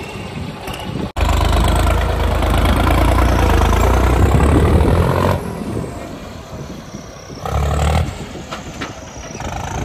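John Deere 5210 tractor's diesel engine revving hard at high throttle for about four seconds, then easing off as the tractor rolls away, with one more short burst of throttle near the end.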